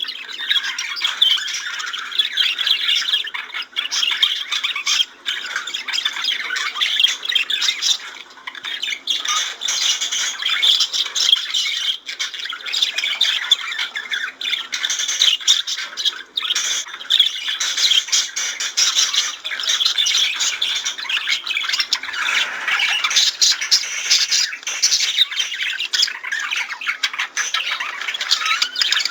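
Budgerigars warbling, chirping and squawking in continuous dense chatter.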